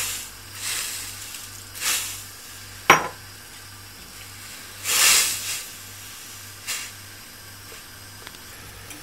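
A hot stainless steel pan of butter, red wine and soy sauce hissing and sizzling in short bursts as sake is poured in and stirred. There is a sharp click about three seconds in.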